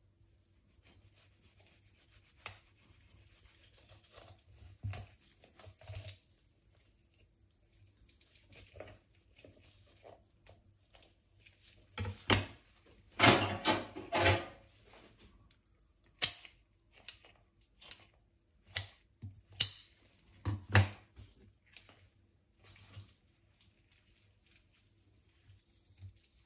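Knife and hands working a fish on a cutting board: scattered taps, knocks and clicks, with a louder stretch of clattering and scraping about halfway through.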